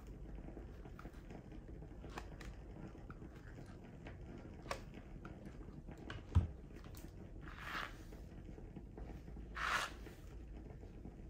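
Quiet handling sounds of a flat iron being worked through a straight wig: small clicks and rustles, a sharp knock about six seconds in, and two short hisses near the end.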